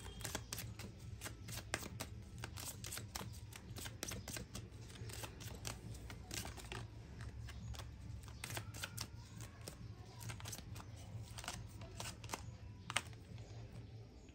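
A small deck of cards being shuffled by hand: a long run of light, irregular clicks as the cards slide and tap together.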